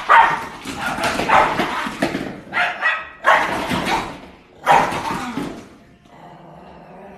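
A small dog barking angrily in a run of loud, harsh bursts, going quieter for the last second or so.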